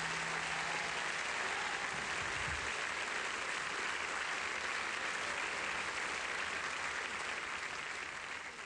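Studio audience applauding at the end of a song, dying away near the end.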